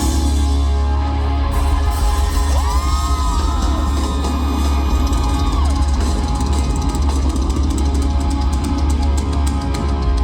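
Loud rock music with a drum kit and a heavy, sustained bass. About two and a half seconds in, a sliding tone rises, holds for about three seconds and falls away.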